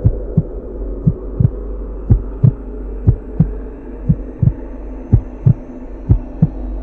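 Heartbeat sound effect: paired low thumps, lub-dub, repeating about once a second over a steady low drone.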